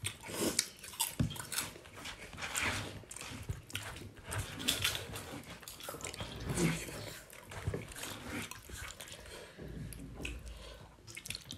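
A person eating soft masala khichri by hand: wet chewing and lip smacking in short, irregular bursts.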